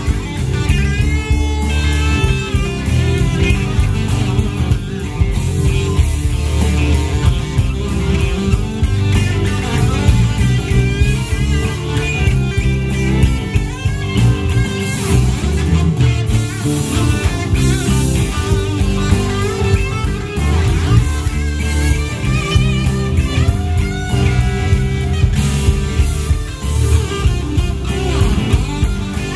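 Live band playing an instrumental passage: electric guitars over bass guitar and drum kit, with a steady driving beat.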